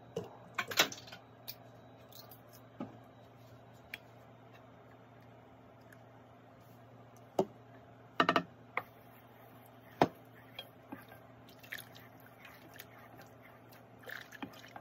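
A utensil stirring a pan of dye water: a few sharp clinks and knocks against the pan, with drips and small splashes, over a low steady hum.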